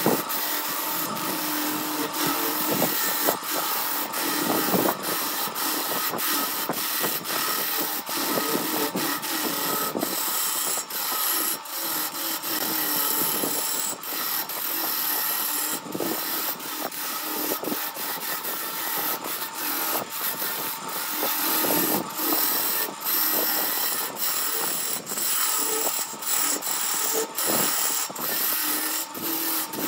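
Wood lathe spinning a wooden vessel while a hand-held chisel cuts into it, a continuous scraping hiss of the tool on the wood broken by many brief dips.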